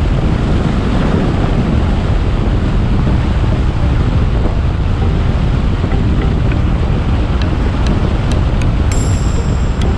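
Steady rush of wind and road noise from a moving vehicle, with wind buffeting the microphone; a few faint clicks in the last few seconds.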